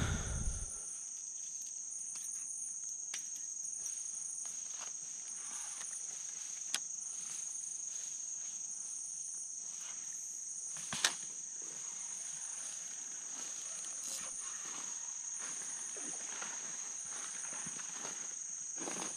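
Steady, high-pitched chorus of rainforest insects, with a second, higher layer pulsing on and off at an even pace. Two sharp clicks stand out, one about a third of the way in and one past the middle.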